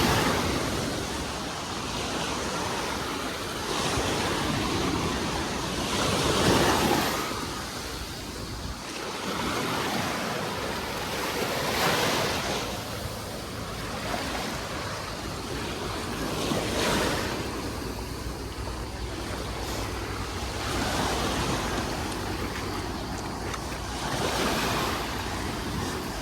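Small sea waves breaking and washing up on the shore, a swell of surf every few seconds, with wind rumbling on the microphone.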